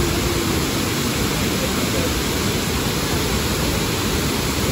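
Shifen Falls, a wide curtain waterfall, pouring over its rock ledge: a loud, steady, even rush of falling water.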